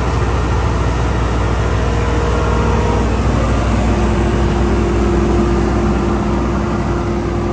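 Dynapac SD2500CS asphalt paver's diesel engine running steadily, a continuous low drone, with a steady higher tone coming in about four seconds in.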